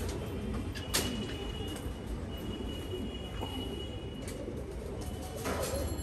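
Racing pigeons cooing continuously, with a sharp click about a second in.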